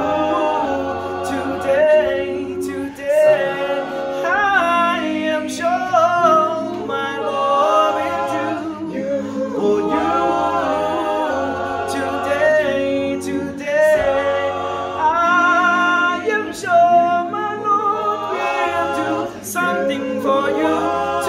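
Male vocal group singing a cappella, a lead voice over harmonies from the others, with no instruments.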